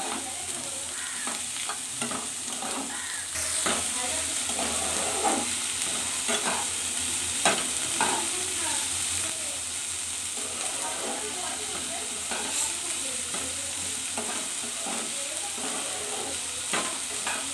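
Sliced onions and whole spices frying in mustard oil in a nonstick wok, sizzling steadily while a spatula stirs and scrapes them around the pan in frequent short strokes.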